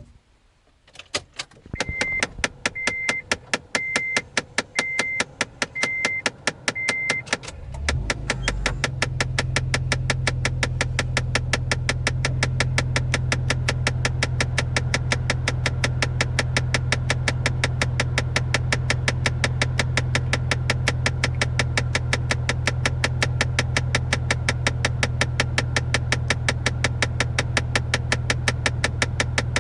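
Honda Insight making a rapid, regular ticking, several clicks a second, that keeps on throughout; this ticking is the abnormal noise under suspicion. Early on, a high chime beeps six times, about once a second. About 8 seconds in, a steady low hum starts and runs under the ticking, as of the engine starting and idling.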